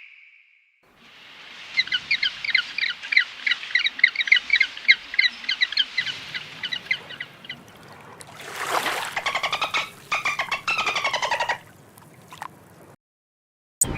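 Bird calls: a fast run of short, high repeated notes lasting several seconds, then after a pause a harsher, rapid chattering call with falling notes.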